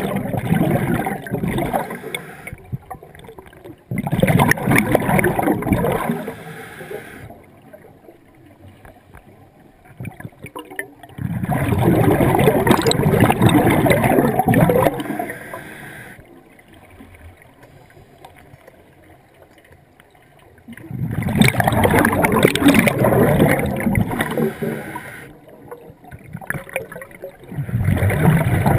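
Scuba diver's exhaled bubbles gurgling past an underwater camera: five bursts of a few seconds each, several seconds apart, with quieter gaps between, following the diver's breathing.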